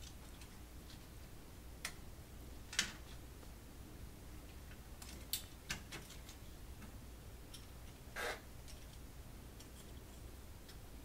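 Scattered faint clicks and taps of small plastic parts being handled and pressed into place while a CD laser sled is refitted, about half a dozen spread out, the clearest near 3 and 8 seconds in.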